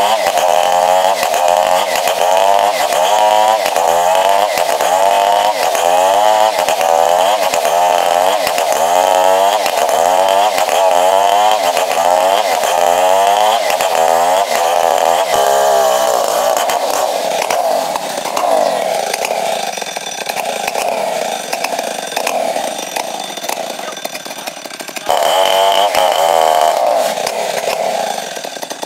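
Two-stroke chainsaw ripping lengthwise through a log to square it into a timber, the engine running hard under load with its pitch wavering up and down in a steady rhythm. About 16 s in the pitch steadies and the sound grows quieter, then it gets loud again near the end.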